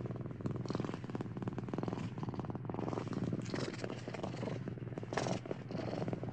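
Domestic cat purring close up: a continuous, rapid, even rattle that swells and eases with each breath.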